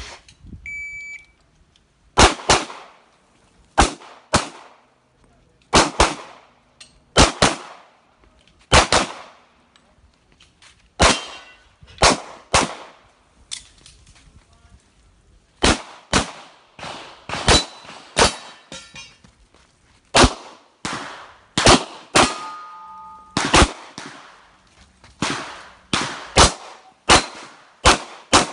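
Shot-timer start beep, then a semi-automatic pistol fired in an IPSC stage: sharp shots, mostly in quick pairs, with short pauses between strings. A brief ringing tone follows one shot about 22 seconds in.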